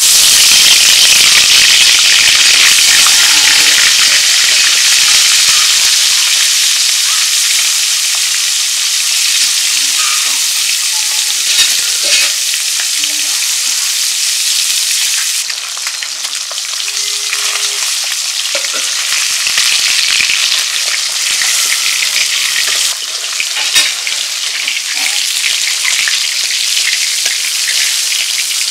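Taki fish (spotted snakehead) frying in hot oil in a cast-iron karahi. A loud sizzle starts abruptly as the fish go into the oil, then settles into a steady hiss that eases a little, with a few sharp clicks along the way.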